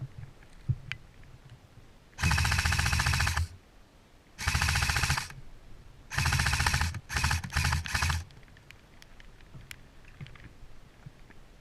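LCT G04 airsoft electric rifle (AEG) firing on full auto in six bursts of rapid shots: a long burst about two seconds in, two shorter ones, then three quick short bursts in a row.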